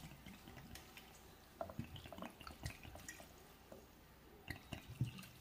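Water poured from a jug into a pan of raw chicken pieces and vegetables: faint trickling with scattered small drips and splashes.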